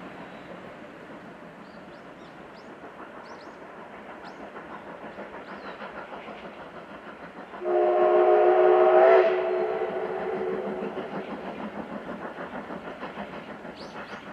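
D51 steam locomotive (D51 200) working along the line with a steady rhythmic beat of exhaust and running noise; about halfway through it sounds its steam whistle in one blast of about a second and a half, a chord of several tones that lingers as it fades.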